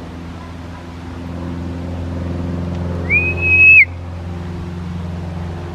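A single high whistled note about three seconds in, held steady for under a second with a quick rise at the start and a drop at the end. It sounds over a steady low engine hum.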